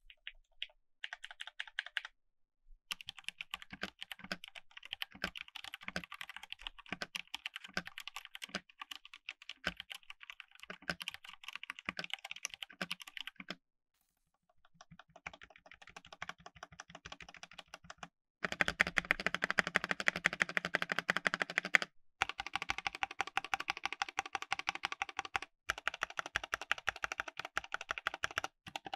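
Typing test on a Dareu EK871 GTR Trinity mechanical keyboard with stock red D-switch linear switches: rapid, continuous keystroke clacks in several runs, loudest from about 18 to 22 seconds in. The case has no foam inside and sounds hollow.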